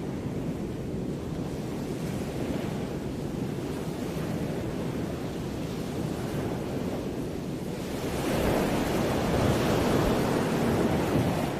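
Sea waves and wind making a steady rush, heaviest in the low end, with the wind buffeting the microphone. About eight seconds in it grows louder as surf washes in on the shore.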